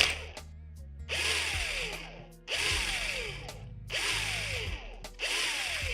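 Small power drill run in short trigger bursts on a die-cast Hot Wheels car, four times, each about a second long, the motor's whine falling as it spins down after each burst. Quiet background music underneath.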